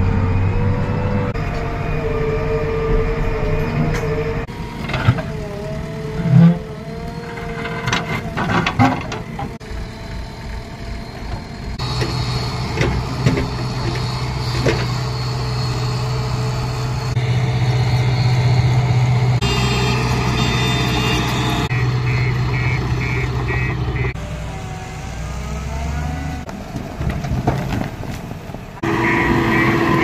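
Heavy diesel machinery, a JCB backhoe loader and a JCB tracked excavator, running and working earth. The engine sound changes abruptly several times. Runs of short repeated beeps come in twice toward the end.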